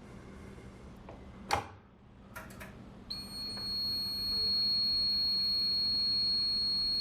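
A manual fire alarm pull station is pulled with a sharp click, followed by a couple of lighter clicks. About three seconds in, the fire alarm system starts a steady, unbroken high-pitched alarm tone: the system has gone into alarm.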